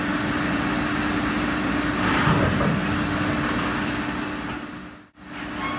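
Fiber laser cutting machine running with a steady hum and hiss as its cutting head travels over the sheet. The sound drops away briefly a little after five seconds in.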